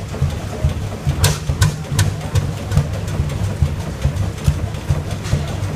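100hp Fairbanks Morse diesel engine running with an even rhythm of low beats, mixed with the constant deep thud of a 55hp Muncie oil engine. A few sharp clicks come about a second in.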